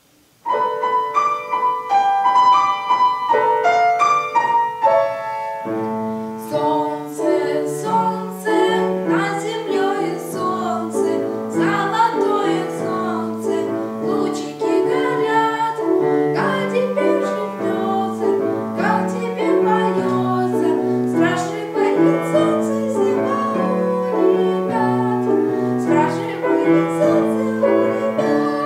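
Grand piano playing a solo introduction to a song: a melody in the upper notes begins about half a second in, and from about six seconds a lower bass line joins it.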